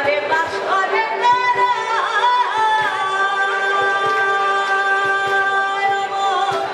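A sung Bengali song over a steady drone note. The voice glides between notes, then holds one long note from about three seconds in until near the end.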